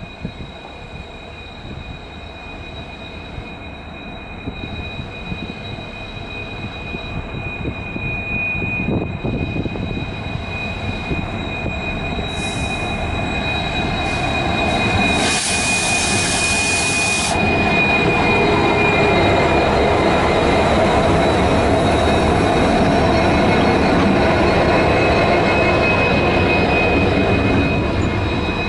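WDG-4D and WDG-4 diesel-electric locomotives, with EMD 16-cylinder two-stroke engines, running under power as they approach, growing steadily louder until they pass close by. A steady high whine runs throughout, and a burst of hiss lasts about two seconds around the middle.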